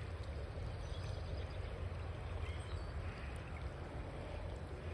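Steady noise of a flowing river with rain falling on the water, over a constant low rumble.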